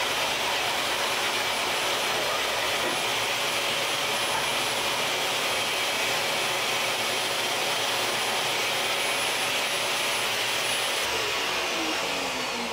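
Steady rushing hiss of an electric workshop machine running continuously. About eleven seconds in it is switched off and winds down with a falling whine.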